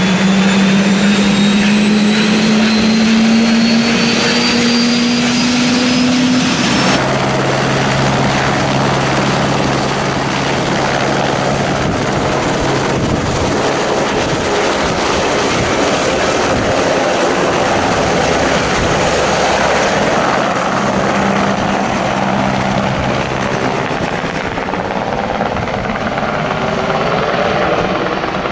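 Eurocopter AS350 Écureuil single-engine turbine helicopter: its turbine and rotor whine rises steadily in pitch for the first six seconds as it runs up to speed. After an abrupt change, the rotor runs at full speed as the helicopter lifts off and climbs away, easing slightly in loudness near the end.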